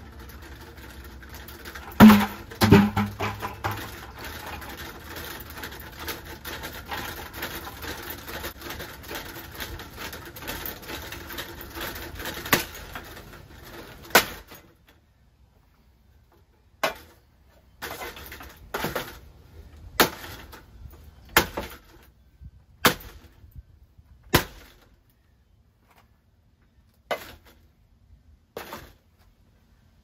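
A battered Harbor Breeze ceiling fan rattling and clattering as it is struck, with loud hits about two seconds in. About halfway through the rattle stops and a series of separate sharp knocks follows, a second or two apart, as the fan is hit again and again.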